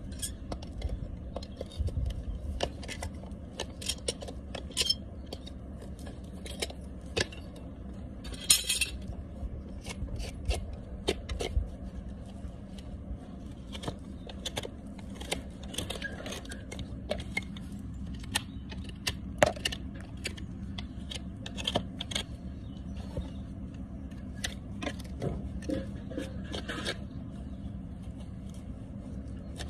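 Farrier's hand tools working a horse's hoof: a rasp and a hoof knife scraping and paring hoof horn against the steel shoe, in many short, sharp scrapes and clicks.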